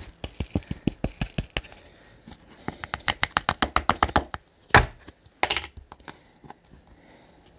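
Small green resin diamond-painting drills clicking and rattling as they are tipped into a small plastic storage container. They come in quick runs of clicks, about ten a second at their densest, with one sharper click about five seconds in.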